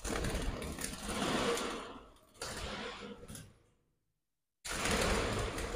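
Scuffling and rattling in a metal wire budgie cage as a hand reaches in to grab the budgerigars. The sound cuts out completely for about a second past the middle.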